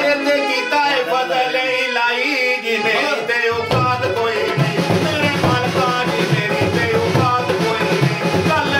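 A man singing a song over instrumental backing, with a drum beat coming in about three and a half seconds in.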